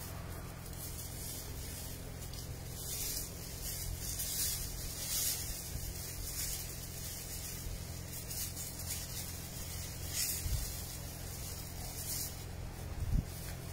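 Irregular rustling of tomato plants and leaves as they are pushed aside and tomatoes are picked, over a steady low hum.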